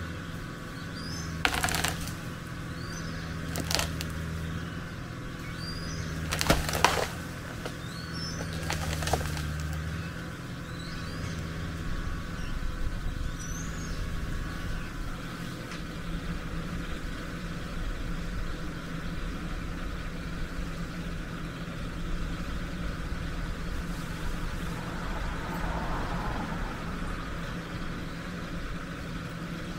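Kubota L4060 tractor's diesel engine running steadily while a snag is winched over, with four sharp cracks of wood in the first ten seconds. Birds chirp now and then.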